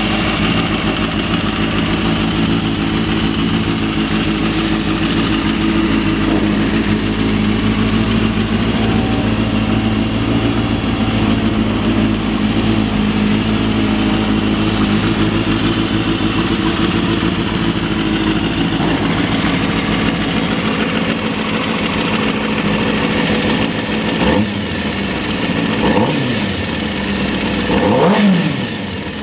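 2003 Kawasaki ZX-6R's inline-four engine idling steadily, then revved a few times near the end, the pitch rising and falling with each blip of the throttle.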